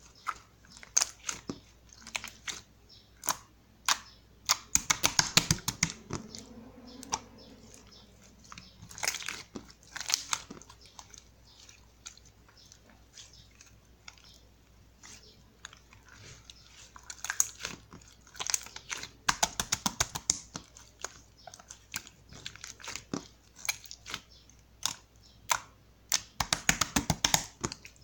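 Grey iceberg slime, a slime whose dried, hardened top crust cracks when handled, being pressed and squeezed. It makes crisp crackling and crunching clicks that come in several dense bursts with sparser clicks in between.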